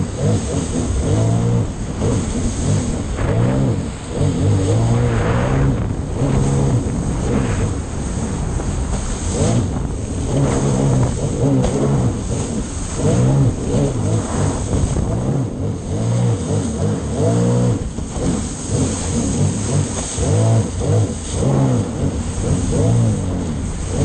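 Sea-Doo Spark Trixx personal watercraft engine running, its pitch rising and falling with the throttle as the craft rides over choppy waves. Rushing water and wind run underneath.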